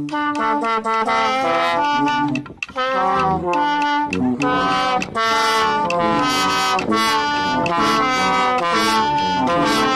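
Instrumental background music led by brass, a melody of short stepping notes over lower sustained tones.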